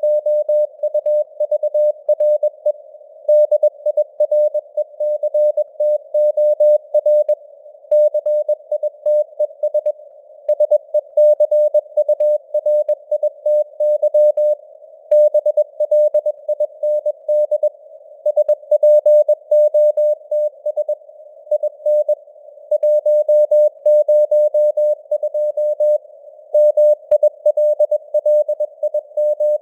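Computer-generated Morse code (CW): a single steady mid-pitched tone keyed on and off in quick dots and dashes at about 21 words per minute, in a narrow band of simulated radio hiss.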